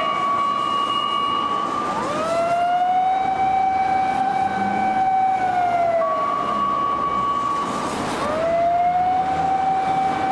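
Fire rescue vehicle's electronic siren on an emergency run: a long wail that sweeps up, holds and falls, alternating with a shorter, higher steady tone, the cycle repeating about every six seconds.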